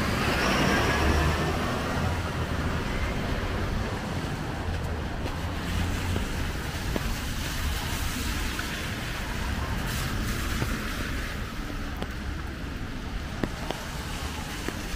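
Steady rain hiss with traffic on a wet city street. A vehicle passes at the start, and its sound fades over the first few seconds.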